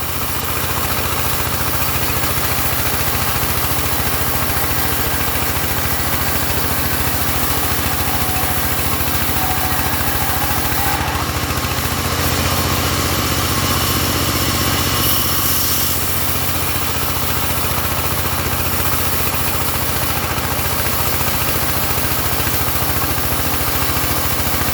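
Engine of a portable sawmill running steadily, with a stretch of added high hiss and a slightly louder hum about halfway through.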